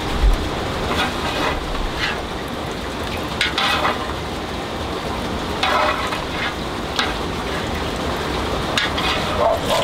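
Steady hiss of a pot of plant dye cooking over a fire, broken by a handful of short clinks and knocks about a second or two apart.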